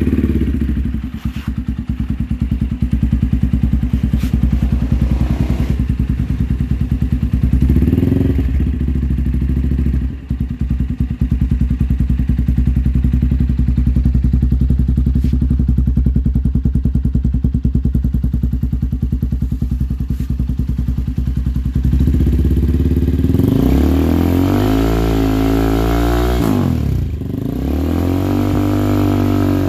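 Motorcycle with an Akrapovič aftermarket exhaust idling steadily, with short throttle blips near the start and about 8 seconds in. Near the end it is revved up and back down twice.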